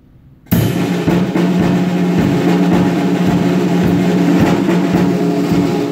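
Drum kit played live, starting abruptly about half a second in with a fast, dense, continuous military-style snare drumming pattern over the bass drum.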